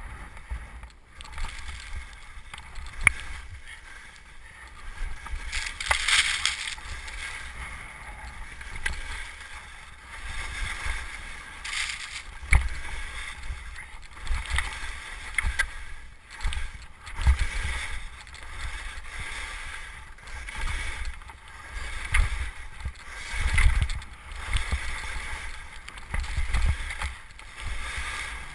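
Skis scraping and swishing through snow turn after turn, a surge of hiss every second or two, with wind rumbling over the helmet camera's microphone and a few sharp clacks.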